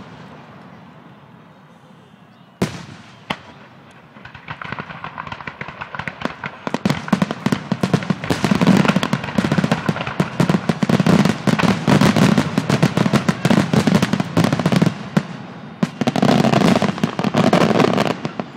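Fireworks finale: two single bangs about three seconds in, then from about four seconds a dense barrage of rapid bangs and crackles that builds up and runs on until just before the end, with a short lull partway through.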